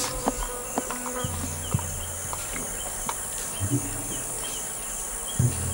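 Forest insects: a steady high-pitched buzz with repeated short chirps, over a low steady hum that comes in about a second in.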